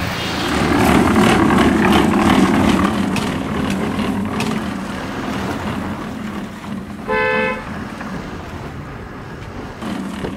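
Motor vehicles passing on a road, loudest over the first few seconds as motorcycle and truck engines go by. A single short horn toot comes about seven seconds in.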